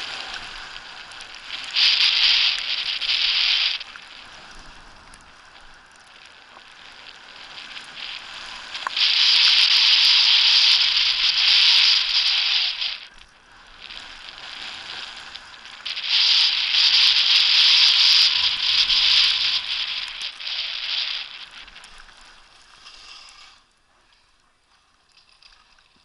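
Skis sliding and scraping over packed snow on a downhill run: a loud hiss that swells in three long stretches, then fades to almost nothing near the end as the skier comes to a stop.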